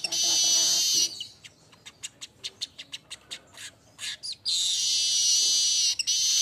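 Manyar (weaver bird) singing: a loud, buzzy, sizzling wheeze breaks off into a run of quick dry ticks, about five a second, and then a long sizzling wheeze starts again.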